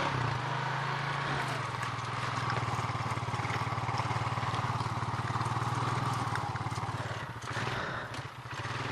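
Honda four-wheeler's engine running at a steady low speed, then easing off and fading about seven seconds in.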